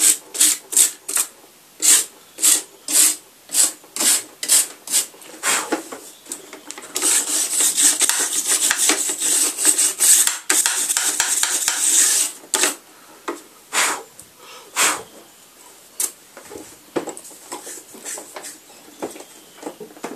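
A brush scrubbing dust off the key contact strips and circuit board of an opened Casio keyboard. It starts as quick back-and-forth strokes, about two a second, becomes a few seconds of continuous fast scrubbing in the middle, then tails off into scattered strokes.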